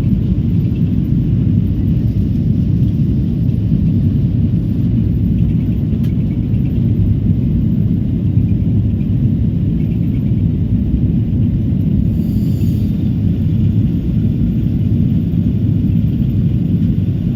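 Steady low rumble of a Boeing 777's engines and airframe, heard from inside the passenger cabin.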